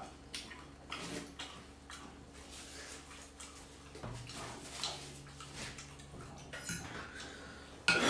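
Spoons and chopsticks making light, scattered clinks and taps against ceramic soup bowls while noodle soup is eaten, with a louder rushing sound at the very end.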